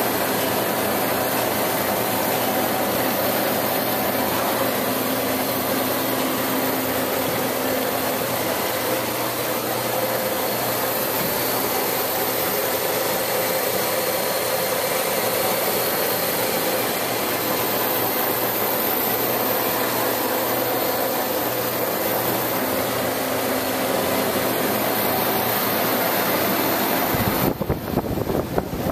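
No. 4A Warner & Swasey turret lathe running under power, a steady mechanical hum and whir from its drive motor and gearing. A brief rumble near the end.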